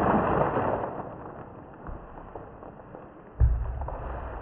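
Muffled rustling and crinkling of plastic sheeting being gathered and tossed aside, fading after the first couple of seconds, with a dull thump about three and a half seconds in.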